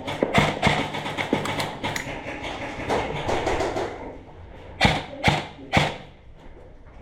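Airsoft gunfire: a scatter of sharp shots and knocks through the first couple of seconds, then three loud single shots about half a second apart.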